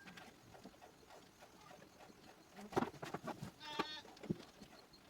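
A goat bleats once, a short call about three and a half seconds in, among a few sharp knocks and clatters.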